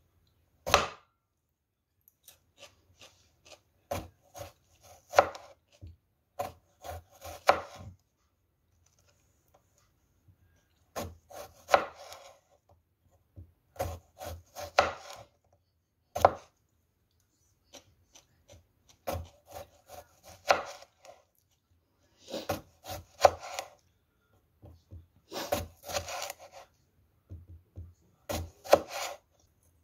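Santoku-style kitchen knife slicing a cucumber on a wooden cutting board: runs of sharp knocks as the blade cuts through and strikes the board, with pauses between runs.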